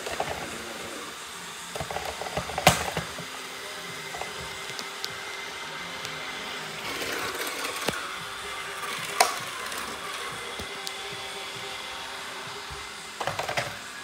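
iRobot robot floor cleaners running on a wooden floor, giving a steady mechanical buzz. A few sharp knocks stand out, a loud one about 3 seconds in and another about 9 seconds in.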